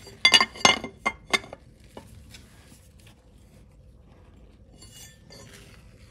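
A quick run of sharp metallic clinks in the first second and a half as a flat steel mounting plate is knocked against the gearbox mount while it is held in place. Only faint light ticks follow.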